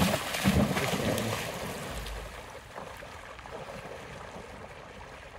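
Hunting dog splashing out through the water on a retrieve, sent after a downed duck. The splashing is loudest in the first second, then fades over the next couple of seconds to a soft wash of water.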